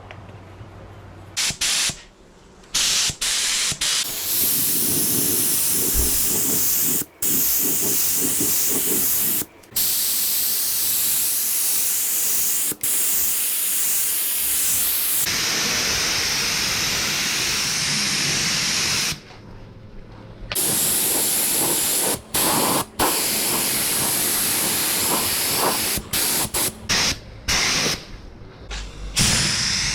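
Spray gun spraying primer, a loud hiss of air and paint in repeated bursts that start and stop sharply as the trigger is pulled and released.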